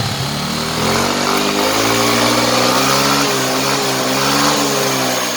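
Yamaha NMAX scooter engine breathing through an RS8 aftermarket exhaust, revved under throttle: the engine note climbs over about two seconds, holds high with a slight waver, and falls back near the end. The pipe sounds quiet, not that noisy.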